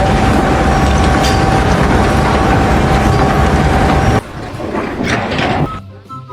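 Loud, dense mechanical rattling with a steady whine, which cuts off suddenly about four seconds in. Quieter noise follows, then music near the end.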